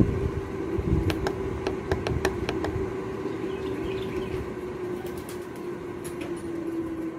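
Mars Hydro 4-inch inline duct fan running with a steady hum, slowly ramping down in speed on its controller's command. Several light clicks from the controller's buttons being pressed, a run of them in the first few seconds and a few more near the end.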